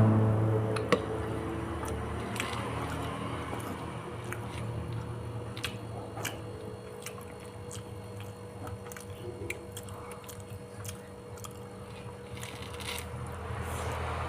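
Close-miked chewing of food, with many sharp clicks and scrapes of a spoon against a plate scattered throughout, over a steady low hum.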